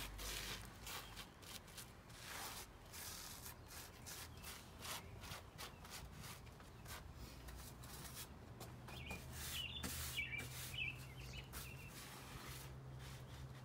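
Faint outdoor ambience: a small bird chirps several times in the second half, over soft rustling noise and a low steady hum that sets in about two-thirds of the way through.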